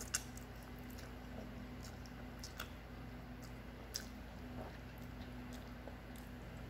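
A person chewing a mouthful of instant noodles, with a few sharp clicks of chopsticks against the bowl, the loudest just after the start and others at about two and a half and four seconds in. A steady low hum runs underneath.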